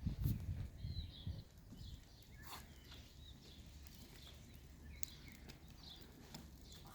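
A few low thuds in the first second and a half, then a quiet outdoor background with faint bird chirps and scattered small clicks.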